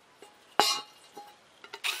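A stainless steel bowl clanks once about half a second in and rings briefly as it is handled and set down, followed by a few light taps. Near the end a cordless drill starts boring through the bowl's thin steel.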